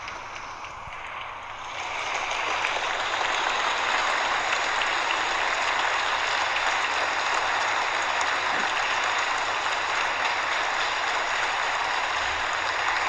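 Audience applauding steadily, growing louder about two seconds in and holding.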